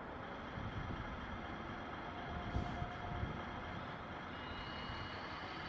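Radio-controlled model heavy-haul truck standing with its engine sound running: a steady low diesel-like rumble, with a brief faint tone about halfway through and a higher one near the end.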